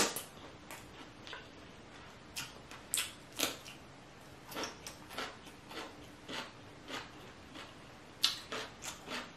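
Close-miked chewing of a large mouthful that includes crisp raw cucumber: irregular short wet crunches and mouth clicks, one sharp one at the start and a quicker cluster near the end.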